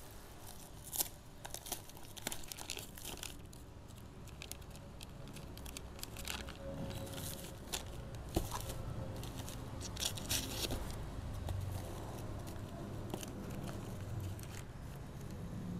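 Paper and plastic wrapping crinkling and tearing in short, irregular crackles as a wrapped kitchen-knife blade is unwrapped by hand, with one sharper click about eight seconds in.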